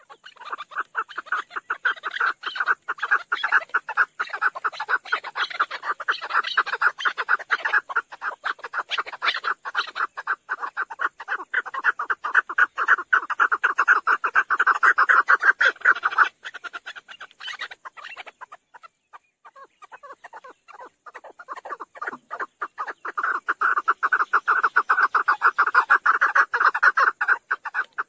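Chukar partridge calling: a long, fast run of clucking chuck notes that dies down about halfway through and builds back up toward the end.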